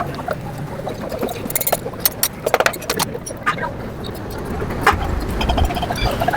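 Repeated light metallic clicks and clinks of engine parts and hand tools being handled during motorcycle engine assembly, over a low background rumble that grows heavier about five seconds in.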